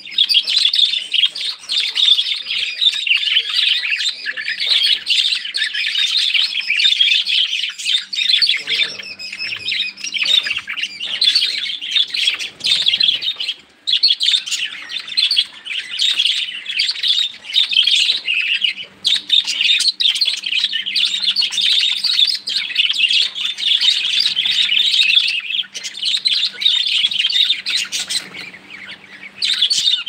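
A flock of budgerigars chattering and chirping all together, a dense, continuous warble of many birds at once, dropping off briefly a couple of times.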